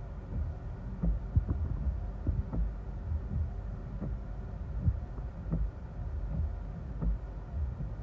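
Low rumble inside a car cabin with irregular dull thumps as gusty storm outflow wind buffets the car.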